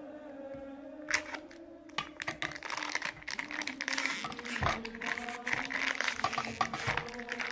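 Clear plastic vacuum-pack wrap on a fruitcake crinkling and tearing as it is pulled open by hand, a dense run of small crackles. One sharp knock about a second in.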